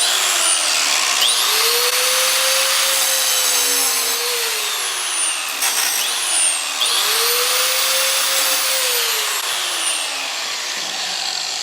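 Angle grinder grinding into an iPhone 6's aluminium case, a loud steady whine and hiss. The motor's pitch climbs twice, about a second in and again around seven seconds in, and each time sags slowly back down.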